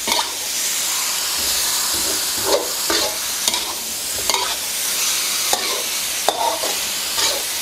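Raw chicken wings and chili-herb paste sizzling in hot oil in a metal wok, with a metal slotted spatula scraping and knocking against the pan every second or so as the wings are tossed to coat them.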